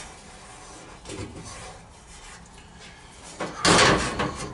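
Steel floor patch panel for a 1966 Ford F100 being shifted over the floor pan, light handling knocks at first, then a loud sheet-metal scrape and rattle near the end.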